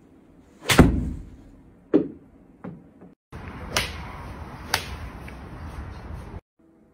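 A golf club striking a ball with a sharp crack that rings briefly in a small room, followed by two lighter knocks. Then, over a steady rushing background, two more sharp club-on-ball strikes about a second apart.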